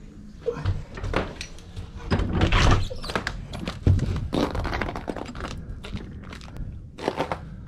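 Handling noise from a person climbing out of an ice-fishing shack onto the ice: a string of irregular knocks and thunks against the shack's door and floor, with clothing rustle.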